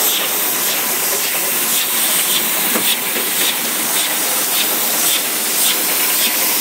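Rotary PET bottle filling and capping machine running: a loud, steady hiss of air and water spray with faint, regularly repeating ticks from the mechanism.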